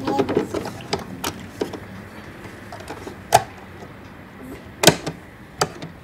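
Plastic clicks and clunks of a portable CD boombox being handled as its lid is opened: a rattly run of clicks at the start, then a few single sharp clicks, the loudest two in the second half.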